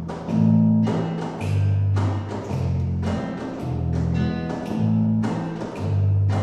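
A small ensemble of acoustic guitars playing together: plucked chords struck in a steady rhythm over held low bass notes.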